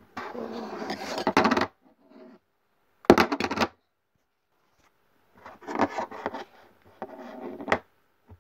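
Putty being stretched and worked in the hands: four separate bursts of rubbing, squishing handling noise with short quiet gaps between them, the first the longest.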